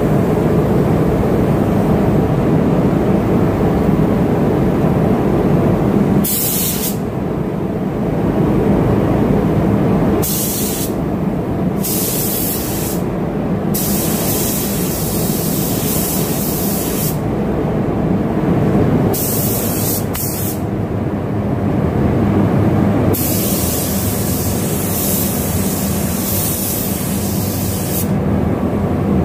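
Gravity-feed spray gun hissing in about six separate bursts as the trigger is pulled, laying a light coat of thin PP primer over sanded spots of wrinkled paint; the bursts run from under a second to about five seconds, the longest near the end, over a steady low rumble.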